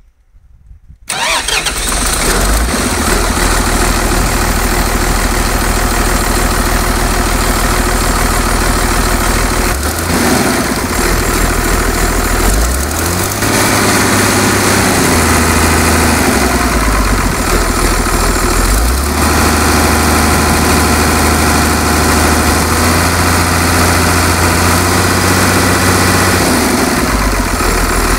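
Cummins 6BT six-cylinder turbo diesel engine catching about a second in and then running loudly, its engine speed rising and falling several times.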